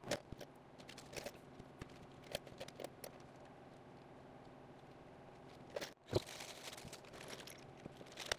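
Faint, scattered clicks and clinks of small steel engine parts (valve springs, collars and keepers) being picked up and set down in rows on a paper-covered workbench.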